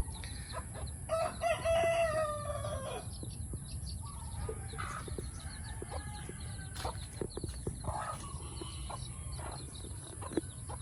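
A rooster crows once, a long call starting about a second in that falls away at its end, followed by scattered short clucks from the poultry.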